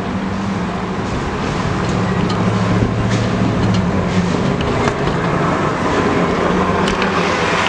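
Diesel freight locomotive approaching, its engine running with a low, steady drone over the rumble of the train on the rails.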